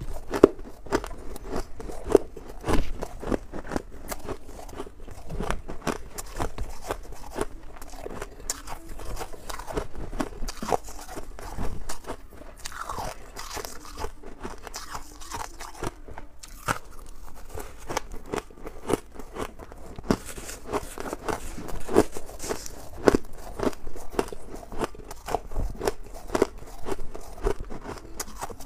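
Crunching and chewing of powdery white ice frost, many sharp crisp crunches in quick succession.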